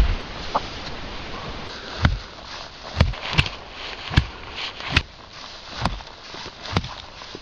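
Regular dull thuds, about one a second, over a steady rustling hiss.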